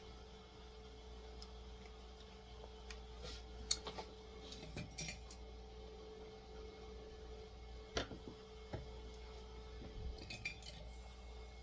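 Small metal hand tools clicking and clinking against a tiny screw and the model's display base as the screw is worked loose; the head is being stripped. Scattered light clicks, with sharper ones about four seconds in, about eight seconds in and around ten seconds, over a faint steady hum.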